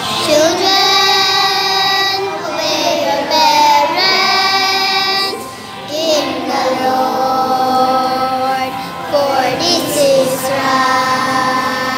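Young children singing a song together, holding long notes, with a brief pause about halfway through.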